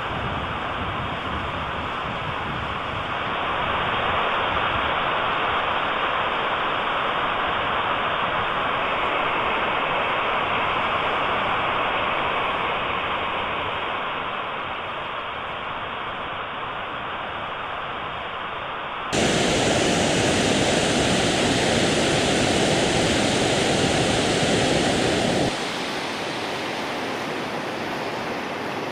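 Steady outdoor rushing noise, shifting in level and tone as the scenes change: muffled at first, then abruptly louder and brighter about two-thirds of the way in, and quieter again a few seconds later.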